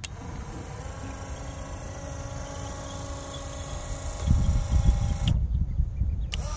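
Salvaged 1980s Ford truck 12-volt worm-gear motor running with a steady whine as it winds the chicken-door cable. It cuts off abruptly about five seconds in and starts again a second later, with low thumping just before the stop.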